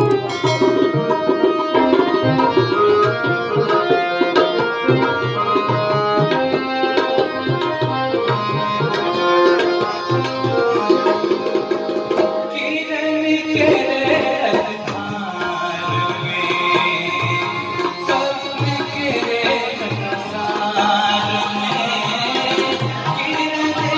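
Tabla played in a fast rhythm with harmonium accompaniment, an instrumental stretch of a live Maithili song; about halfway through the sound turns brighter and higher.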